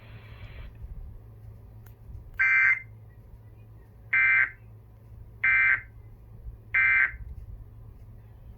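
Emergency Alert System end-of-message data bursts: four short, shrill digital screeches about a second and a half apart. This is the AFSK 'NNNN' code that closes a broadcast alert.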